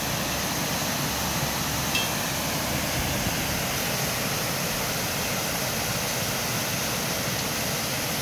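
Steady rushing of water pouring over a river weir.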